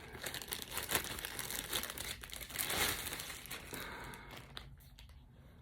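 Packaging crinkling and rustling as the copper pipe press tool is handled and unwrapped, a dense crackle that fades off near the end.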